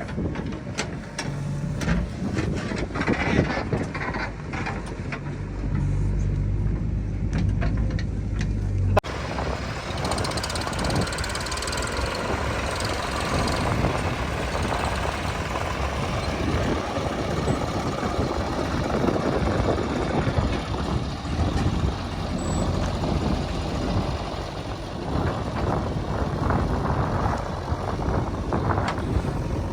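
Heavy diesel machinery engine running, with low steady engine tones and some knocks at first. About nine seconds in the sound changes abruptly to a rougher, noisier mechanical din that carries on to the end.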